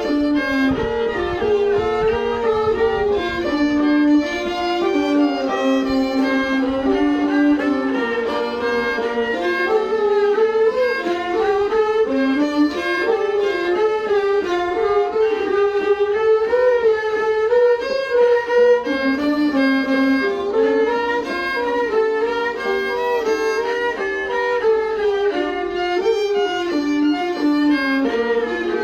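A bowed string instrument playing a winding melody, with a steady low note sounding beneath it the whole time.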